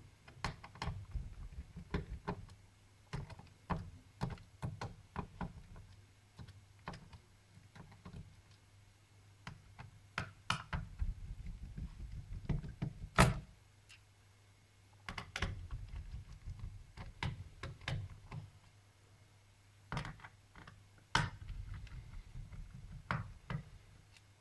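Small screws being undone with a screwdriver in the netbook's plastic case, with irregular clicks and light knocks as the screws, tool and netbook are handled on a tabletop. A few sharper clicks stand out, the loudest about 13 seconds in.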